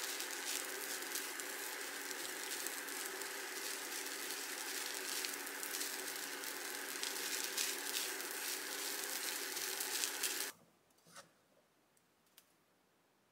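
Fried rice sizzling and crackling in a pan as a wooden spatula stirs and scrapes it, over a steady hum. It cuts off about ten seconds in, leaving near silence with a couple of faint ticks.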